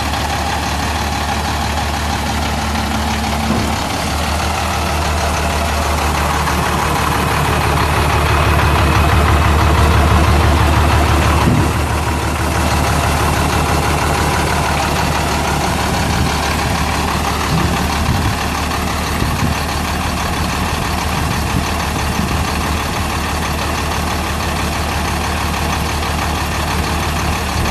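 International DT530 8.7-litre inline-six turbo diesel of a dump truck idling steadily. It runs louder for a few seconds near the middle, then drops back suddenly to a steady idle.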